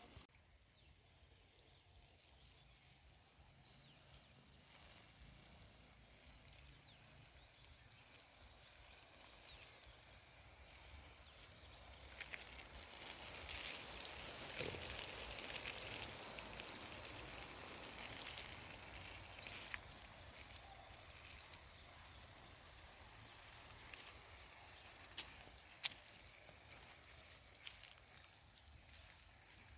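Outdoor hissing noise that swells slowly to a peak about halfway through and then eases off, with a few faint clicks.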